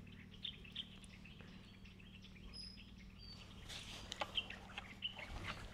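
Quiet background with a steady low hum and a few short, high bird chirps in the middle; light clicks and knocks come in the second half as the brush cutter's engine is taken hold of and handled.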